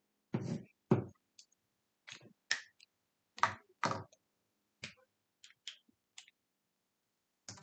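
Whiteboard marker tapping and scraping on a whiteboard while writing: about a dozen short, dry clicks and knocks at uneven spacing, the strongest in the first second and around the middle.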